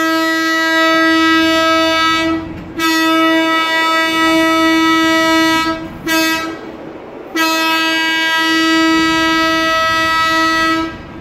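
Diesel locomotive horn sounding long, long, short, long: the standard grade-crossing signal.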